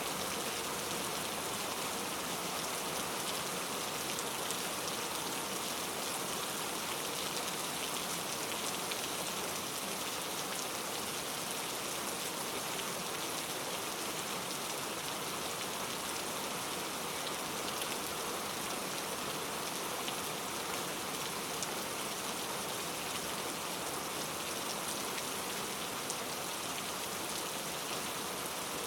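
Steady rain with a dense, even patter of drops; no thunder.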